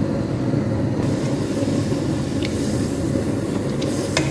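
Water with boneless chicken pieces coming to a boil in a pan over a gas burner on full flame: a steady low rumble of bubbling, with a few small pops.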